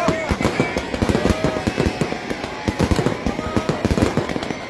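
Fireworks going off in a dense, continuous barrage: rapid bangs, several a second, over constant crackling.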